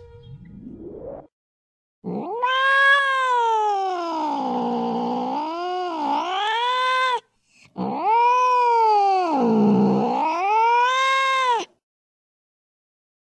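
Domestic cat yowling: two long, drawn-out caterwauls, each several seconds long, wavering up and down in pitch, with a short break between them.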